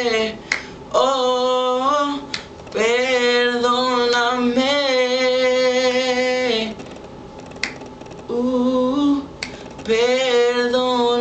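A young man singing unaccompanied in Spanish, with long held and sliding notes in wordless runs between lines. A few sharp finger snaps fall between the phrases.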